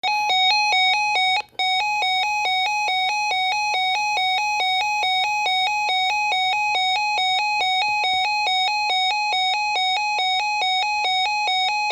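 Electronic emergency alert tone: a harsh buzzing tone that switches rapidly back and forth between two pitches, with a brief break about one and a half seconds in. It is the attention signal that comes before a spoken severe thunderstorm warning.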